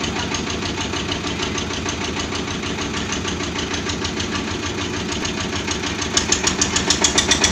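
Engine of a Jaggat Jit trailer-mounted borewell drilling rig running steadily with a fast, even beat. About six seconds in, a louder rhythmic knocking sets in, about three to four beats a second.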